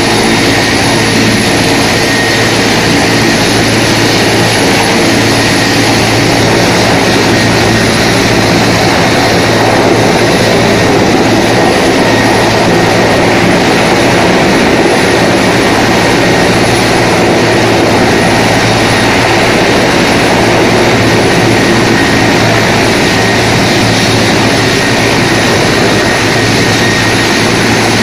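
Mil Mi-17 helicopters running at close range: the twin turboshaft engines whine and the main rotors turn, loud and steady, with a thin high whine held throughout. Near the end one of the helicopters lifts off and climbs away.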